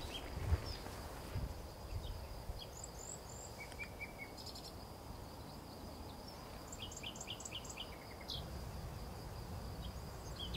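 Small songbirds calling in a winter forest: scattered short high chirps, with a quick run of about six notes a little before the middle, over a low, steady rumble of outdoor air. A few soft footsteps in snow in the first second and a half.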